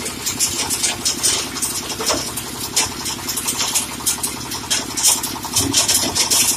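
Tractor-driven coal crusher running: the tractor engine runs steadily under a continuous irregular metallic clatter from the crusher.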